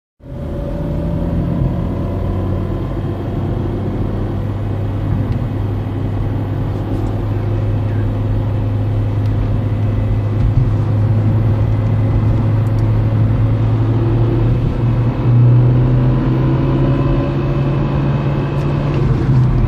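Peugeot 307 1.6 16v running, a steady low engine hum with a thin whine on top; the low note rises slightly about 15 seconds in. This is the strange gearbox noise, which fresh gearbox oil has not cured and which the owner wonders may be a faulty gearbox thrust bearing.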